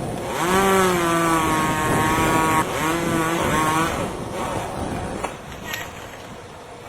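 Chainsaw engine revved up to full throttle and held, twice in a row, then dropping away.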